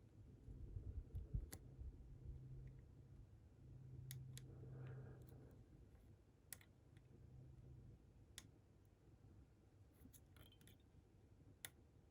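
Faint, sparse clicks from inside a Medeco cam lock as the pick and tension tool are wiggled back and forth, about six small sharp clicks over low handling rustle. The picker wonders whether these tiny clicks are the angled pins rotating into place or just the tools moving.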